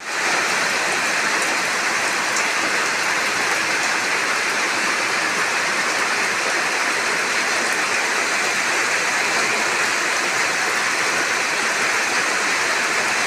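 Steady rain falling, a dense even hiss with no break.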